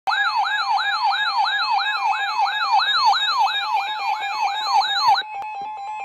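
Weather alert radio's siren alarm going off for a severe thunderstorm warning: a fast whooping sweep repeated almost three times a second, changing to a steady tone about five seconds in.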